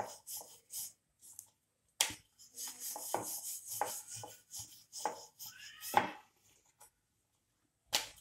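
Wooden rolling pin rolling back and forth over paratha dough on a wooden rolling board: uneven rubbing strokes with short pauses and a few sharp wooden knocks.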